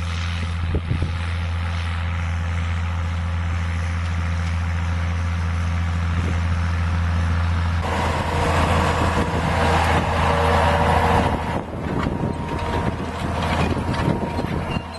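Farm tractor's diesel engine running steadily as it works a field, a constant low drone. About halfway through the sound becomes louder and rougher, with more clatter and rush from the machine.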